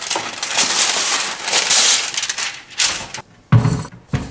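Baking paper being pulled from its box and torn off, a dry crinkling rustle full of small crackles, followed by two dull knocks near the end.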